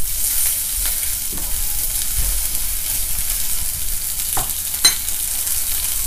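Eggplant slices and sausages sizzling on a tabletop hot plate, a steady frying hiss. A few light clicks cut through it, the sharpest a little before five seconds in.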